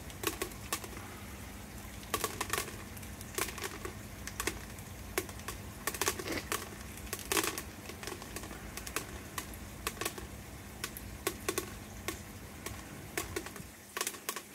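Koi food pellets dropping from an automatic pond feeder into a container: an irregular patter of small sharp ticks, thinning out near the end, over a faint steady hum.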